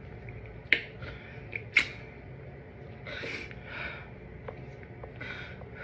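Two sharp wet mouth smacks about a second apart as a banana is sucked out of its peel, then three short, hissy breaths.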